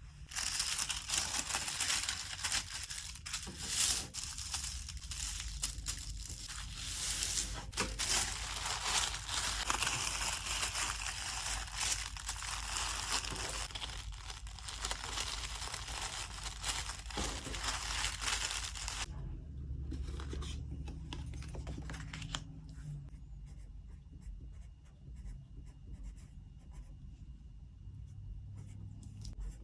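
Packing material being handled while an order is packed: steady crinkling and tearing for about the first nineteen seconds, then quieter handling with soft taps.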